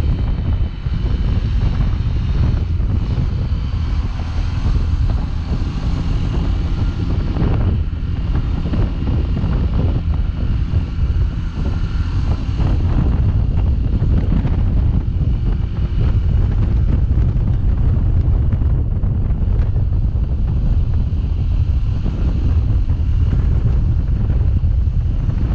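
Wind buffeting the microphone while riding a 2021 Sinnis Terrain 125 motorcycle, its 125 cc single-cylinder engine running underneath as a steady low rumble.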